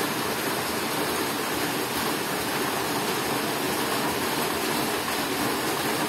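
A steady, even rushing noise with no other sound over it.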